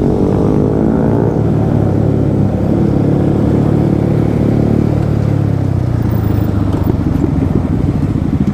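Yamaha MT-15's 155 cc single-cylinder engine running under way. Its pitch falls in the first second, holds steady, and eases off about six seconds in.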